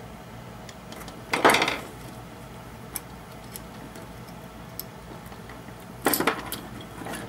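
Handling clatter of a guitar effects pedal's circuit board and plastic housing as the board is worked out of the case. There is a loud rattle about a second and a half in, another near the end, and light ticks in between.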